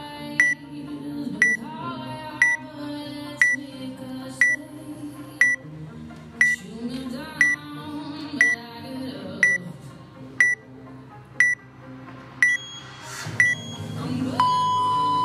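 Workout countdown timer giving a short high beep once a second, then a long, lower start tone near the end as the countdown reaches zero.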